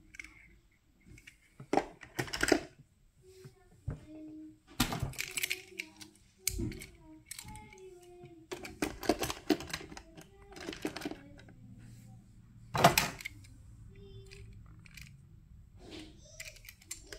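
Die-cast toy cars and a hard plastic carry case being handled: irregular clicks and clacks as the cars are picked up and set into the case's slots, with one louder clack about three-quarters of the way through.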